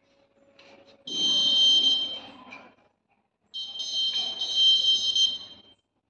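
Piezo buzzer on a home-made ultrasonic blind stick sounding two high-pitched, steady beeps, the first about a second in and lasting about a second and a half, the second about two seconds long. It is the obstacle alert, set off as the stick's ultrasonic sensor nears an object in its path.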